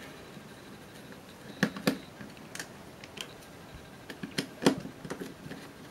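Small screwdriver clicking and scraping against the metal machine screws in a plastic pager housing as they are undone: a few scattered sharp ticks, the loudest near the end.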